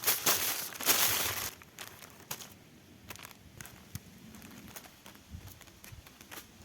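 Loud crinkling and rustling for about a second and a half, then scattered light clicks and taps.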